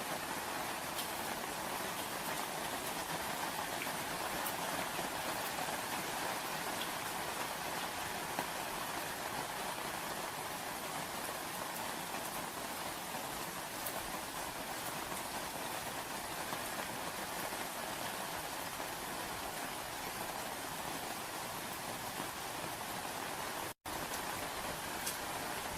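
Steady rain falling, an even hiss with occasional faint drop ticks. It cuts out for an instant near the end.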